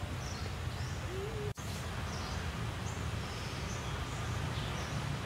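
Outdoor forest ambience: small birds chirping repeatedly over a steady low rumble. The sound drops out for an instant about one and a half seconds in.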